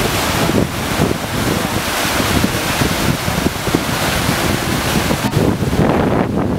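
Silty glacial meltwater river rushing fast, with wind buffeting the microphone in uneven low gusts. About six seconds in, the hiss of the water thins and the wind rumble is left.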